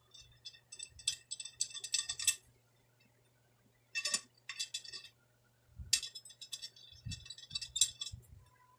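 Steel spokes and nipples clinking and rattling against a motorcycle wheel's rim and hub as spokes are laced in and their nipples threaded on loosely. The light metallic clicks come in three spells with short pauses between.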